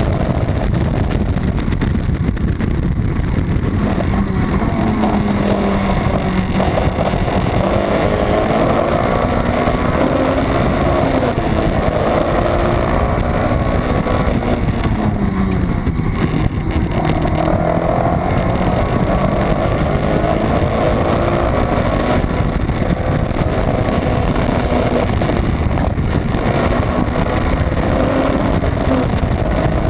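Honda Civic's B18 non-VTEC four-cylinder engine running hard at racing speed, its note climbing and dropping several times with throttle and gear changes over steady road and wind noise.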